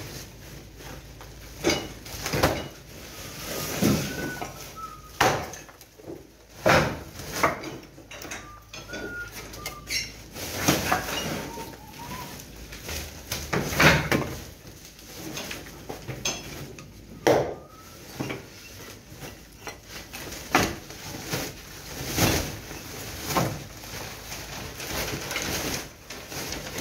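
Large woven plastic debris sacks rustling and crackling as they are handled and stuffed with demolition rubble, with irregular knocks and crunches from the debris going in.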